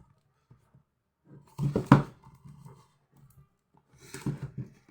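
Toy packaging being handled: two short bursts of knocks and rustling, about a second and a half in and again near the end.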